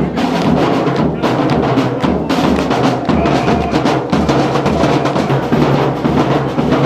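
Loud drum-led music with a steady beat and heavy bass.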